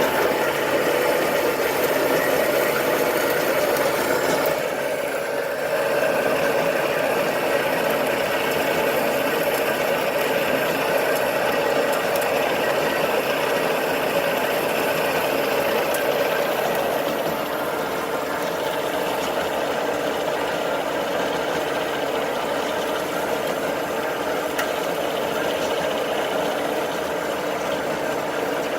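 Marvel 8 tilt-frame vertical band saw running steadily, its 3-phase motor and drive giving an even hum with a rattly mechanical buzz.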